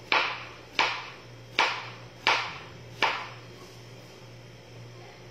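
Knife chopping on a cutting board: five sharp strikes about three-quarters of a second apart, stopping about three seconds in.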